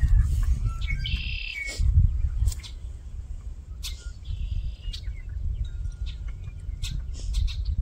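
Wind buffeting the microphone in a steady low rumble, with a songbird chirping twice, about a second in and again around four seconds in. A few short clicks.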